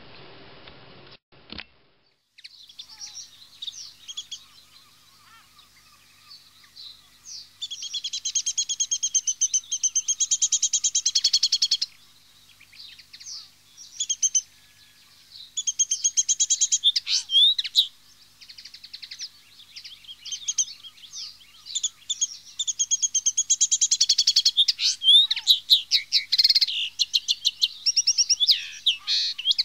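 Common linnet song: a fast, chattering twitter of high notes, coming in several long runs with sparser calls between them.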